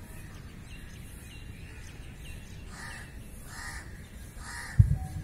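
A crow cawing three times in the second half, short harsh calls spaced a little over half a second apart, over a steady low rumble. A loud low thump comes near the end.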